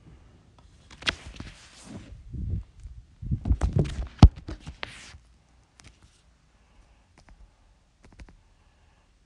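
Handling noise: rustling and knocks with a run of sharp clicks, the loudest a single sharp click about four seconds in. After about five seconds only a few faint, scattered clicks remain.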